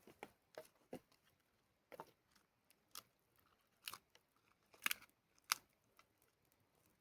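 Dry twigs and kindling snapping and crunching in a string of irregular sharp cracks, loudest near the middle and about five seconds in, as a campfire is laid.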